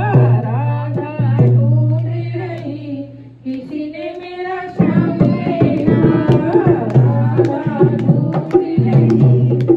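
Group singing of a Hindu devotional bhajan through a microphone and loudspeaker, over a held low drone for the first few seconds. About five seconds in, a hand drum and hand-clapping come in with a quick, steady beat under the singing.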